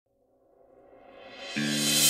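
Intro music fading in from silence: a rising swell, with a held chord coming in about one and a half seconds in.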